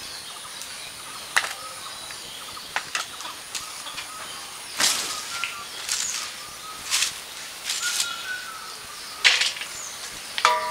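Stainless steel bowls and plates being handled, giving a series of short clanks and scrapes, with sliced raw potatoes tipped from one steel bowl into a larger one near the end. Birds chirp briefly in the background.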